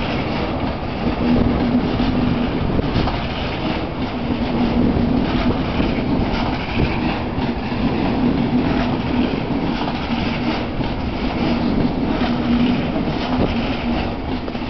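ICE high-speed train passing slowly over the railway bridge, running slowly as it nears the station ahead: a steady rumble of wheels on rails with a constant low hum.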